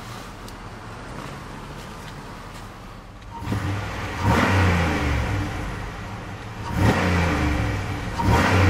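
2008 Buick LaCrosse Super's 5.3-litre V8 idling, then revved three times in park, each rev a throaty rise and fall in pitch, heard from the driver's seat.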